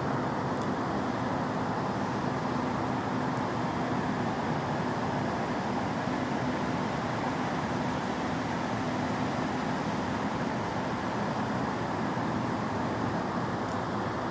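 Steady low rumble of city background noise, with a faint even hum that fades out about ten seconds in.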